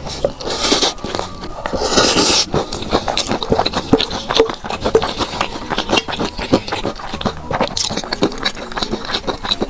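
Close-miked eating sounds: a person biting and chewing food, with a steady run of small wet clicks and smacks and two short crunchy bursts in the first few seconds.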